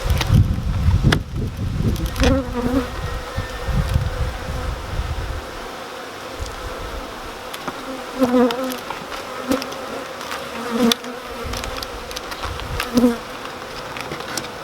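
Honeybees buzzing around an open hive, a steady hum that swells every few seconds as single bees fly close past. A few light knocks, and low rumbling for the first few seconds.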